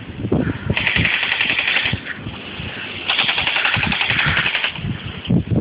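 Airsoft rifle firing two bursts of full-auto, each a fast rattling string of shots: a short burst about a second in and a longer one about three seconds in.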